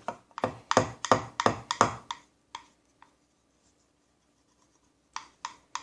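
A mixing tool scraping around a bowl while stirring glue and water for slime, in quick strokes about three a second that stop about two and a half seconds in, then two more strokes near the end.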